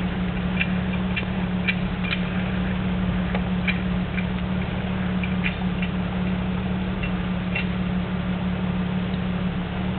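Off-road 4x4 crawling up a steep loose-rock slope: a steady low engine drone with scattered small ticks and clicks of stones under the tyres.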